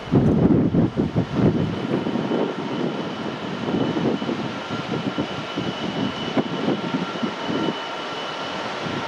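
Class 66 diesel freight locomotive approaching from a distance, its two-stroke V12 engine a low, steady drone. Wind buffets the microphone in gusts for most of it and eases near the end.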